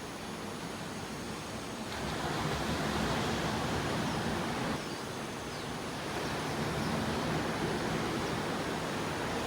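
Small sea waves washing ashore, a steady rushing wash that swells about two seconds in, eases briefly near five seconds, then swells again.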